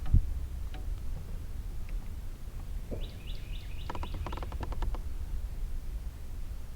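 A bird calls with a quick run of short, high, falling notes about three seconds in, followed by a rapid cluster of clicks. A low rumble, like wind on the microphone, runs underneath, with a thump right at the start.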